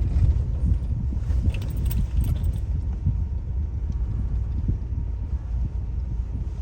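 Low, steady rumble of a car driving slowly, heard from inside the cabin, with a light jingling rattle in the first couple of seconds.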